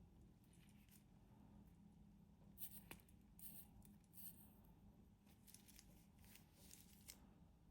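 Faint handling sounds of a titanium wristwatch: soft scrapes and rustles against quiet room tone, with one sharp click about three seconds in.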